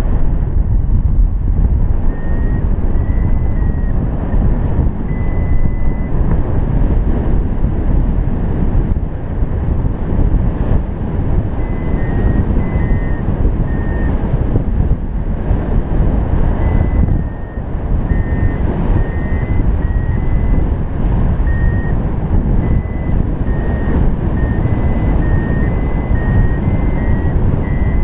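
Electronic beeps from a home-built Arduvario ESP32 paragliding variometer: short tones whose pitch shifts slightly from beep to beep, in runs from about two seconds in, signalling that the glider is climbing (the vario beeps above +0.15 m/s). Heavy wind noise on the microphone from the airflow in flight is louder than the beeps throughout.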